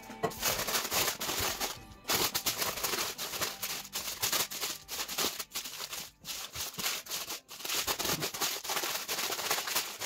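Paper rustling and crinkling as hands press and roll a soft chocolate log inside it, a busy crackle broken by short pauses, with music faintly underneath.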